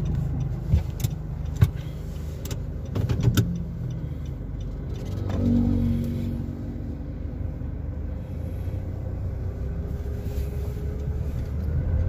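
Car running, heard from inside the cabin: a steady low rumble, with several sharp clicks and knocks in the first few seconds and a swell in the rumble about five to six seconds in.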